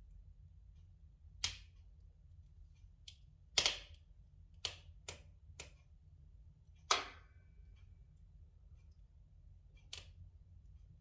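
Spruce logs burning in a fireplace, crackling with irregular sharp pops, about seven louder ones with faint ticks between, over a low steady hum.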